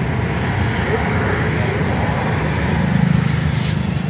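Road traffic noise: a steady low rumble of passing vehicles, swelling about three seconds in.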